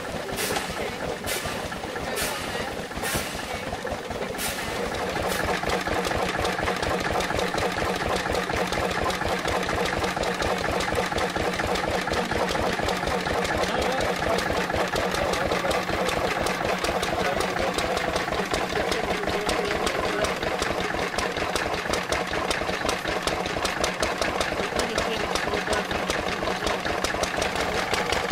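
Restored wooden winnowing machine running: a few separate knocks about a second apart, then from about four seconds in a louder, fast, steady mechanical rattle.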